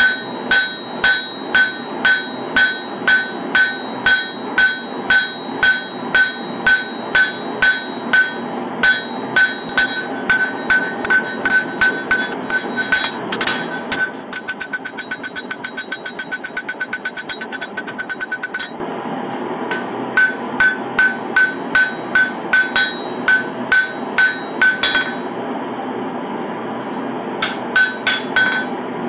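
Hand hammer beating a red-hot katana blade on a steel anvil to forge its bevels: steady ringing blows about two a second. Around the middle comes a run of quicker, lighter strikes, and a short pause before a last few blows near the end, all over a steady background drone.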